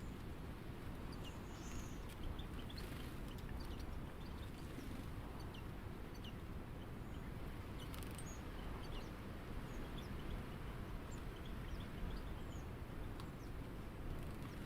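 Many short, high bird chirps scattered throughout, over a steady low outdoor background rumble.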